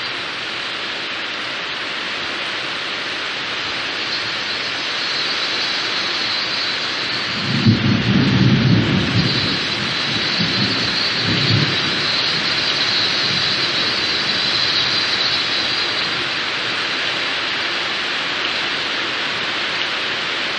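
Steady rain falling, with a low rumble of thunder about seven and a half seconds in that lasts over a second, and a shorter rumble a few seconds later.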